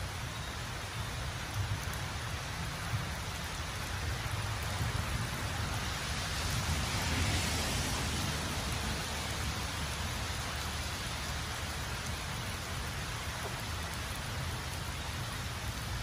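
Steady hiss of rain falling on wet pavement, with a low rumble underneath; the hiss swells for a couple of seconds around the middle.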